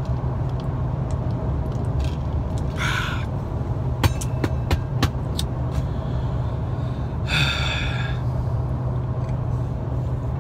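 Steady low road-and-engine rumble of a vehicle driving at highway speed, heard from inside the cabin. A short breathy sound comes about three seconds in and another about seven seconds in, with a few sharp clicks in between.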